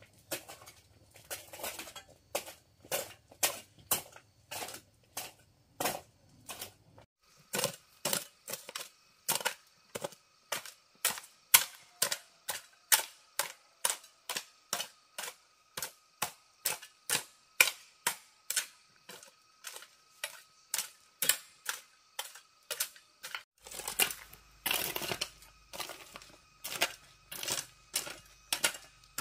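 A steady run of sharp knocks, about two a second, as of something being struck over and over, with a faint steady tone joining about a quarter of the way in.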